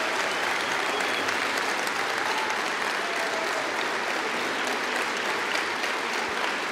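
Large crowd applauding, steady even clapping that holds at one level.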